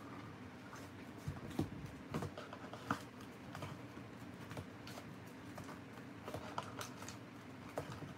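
1989 Donruss wax packs of baseball cards being lifted out of their cardboard wax box and set down in a stack: faint rustling with light taps and clicks, a few sharper ones in the first three seconds.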